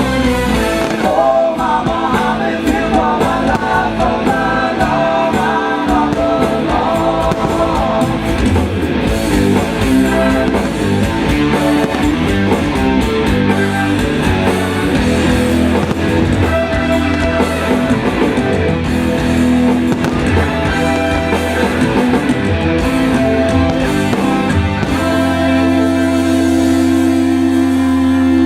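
Rock music from a live band, with electric guitar over drums.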